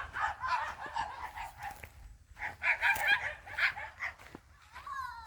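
Poultry clucking and chirping: a scatter of short, high calls that grow busier about halfway through.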